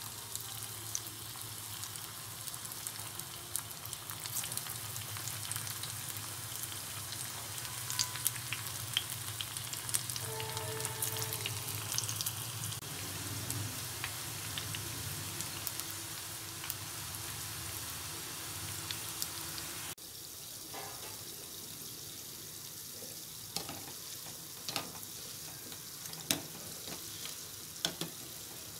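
Rice and spinach balls deep-frying in hot oil: a steady sizzle with scattered crackles and pops. Near the end a wire skimmer stirs them, adding light clicks.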